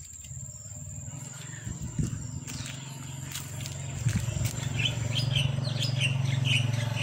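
Tabby mother cat purring steadily, the purr growing louder, with short bird chirps in the second half.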